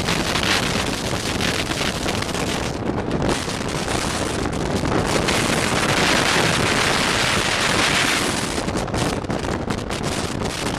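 Strong wind rushing over the microphone of a camcorder held up through the sunroof of a car at highway speed, with road noise underneath. The rush grows louder and hissier about halfway through, then eases off.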